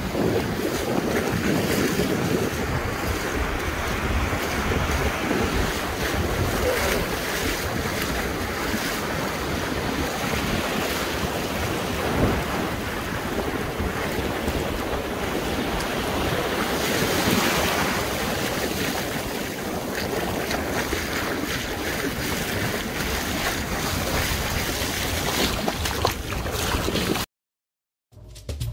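Ocean surf breaking and washing up the shore in a steady rush of foam, with wind buffeting the microphone. The sound cuts off suddenly near the end.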